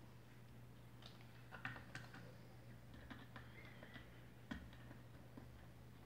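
Near silence with a few faint, scattered clicks as a screwdriver tightens wires into the terminals of a light switch.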